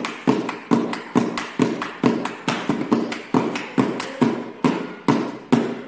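Two boys clapping and patting their hands in a steady rhythm, about two and a half sharp claps a second.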